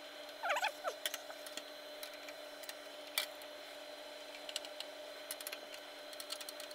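A hand screwdriver tightening the case screws into the radiator and fan of a CPU liquid cooler, giving faint scattered clicks and ticks with a short squeak about half a second in.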